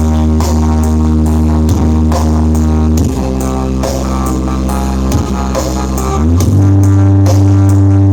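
Loud music with heavy, held bass notes and a steady drum beat, played through a large horeg sound-system rig during a sound check. The bass changes about three seconds in, then slides up into a louder held low note about six seconds in.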